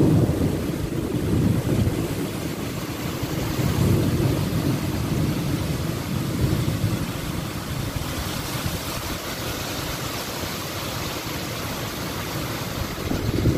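Heavy storm rain with strong wind gusting on the microphone. The low rumbling gusts are strongest near the start and again near the end, and the hiss of rain grows brighter about halfway through.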